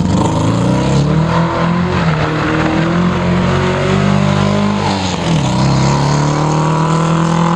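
Škoda 120's rear-mounted four-cylinder engine pulling hard as the car drives past at competition pace. The engine note drops briefly about five seconds in, then climbs again.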